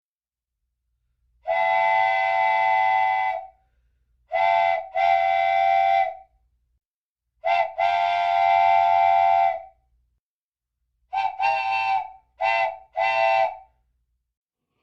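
A train whistle sounds a chord in a run of blasts. First comes one long blast, then two short-long pairs, then four short blasts near the end.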